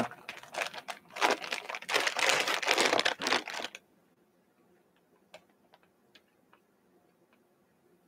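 Crinkly plastic candy packaging being handled, a dense crackling for about three and a half seconds that stops suddenly, followed by a few faint ticks.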